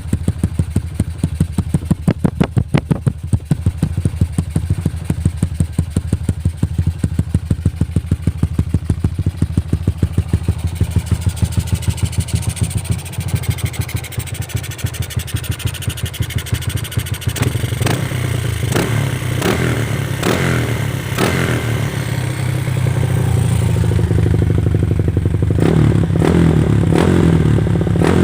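Yamaha LC135's single-cylinder four-stroke engine with a 4 mm jackrod build, through a Yoshimura tri-oval exhaust. It idles with an even, loud pulse, then runs faster and louder in the second half, with a few quick revs.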